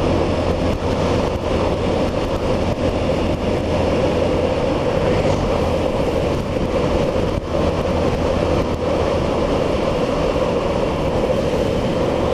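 Steady on-board engine and road noise from a vehicle cruising along an asphalt road. It has a constant drone and an even rush, with a few brief light knocks.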